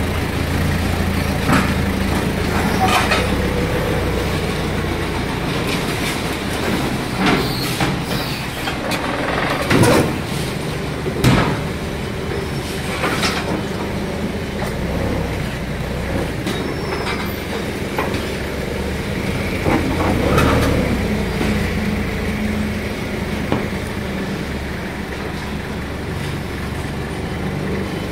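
Forklift engine running steadily, with several sharp knocks and clunks, the loudest about ten and eleven seconds in, as bundled plywood is moved in a steel shipping container.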